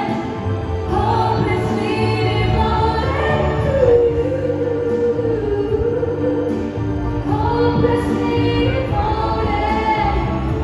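A woman singing a song into a microphone over backing music, amplified through PA speakers. She holds a long, wavering note through the middle.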